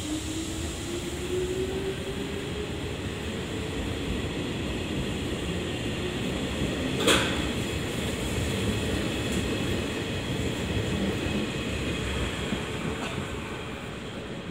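Nishitetsu commuter train pulling out of the station and rolling past, its motor whine rising in pitch over the first few seconds over a steady rumble of wheels on rail. There is a single sharp click about seven seconds in.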